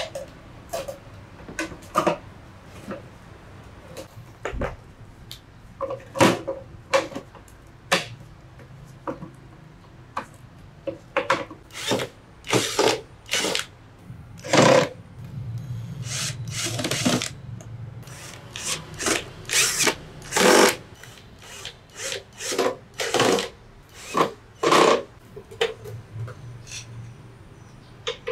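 Makita cordless drill running for a few seconds about halfway through, drilling into the sheet-metal case of a small inverter welding machine. Around it are many sharp knocks and clatters from handling the metal case and tools.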